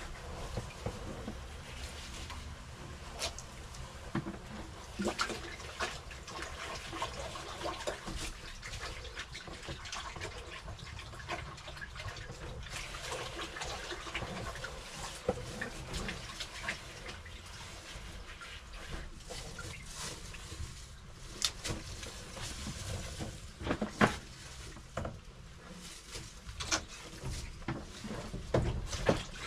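Water trickling and splashing, with scattered clicks and knocks; a sharp knock about 24 seconds in is the loudest.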